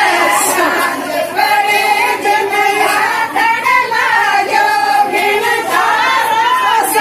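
A group of women singing a Rajasthani folk song together, one continuous melody without a break.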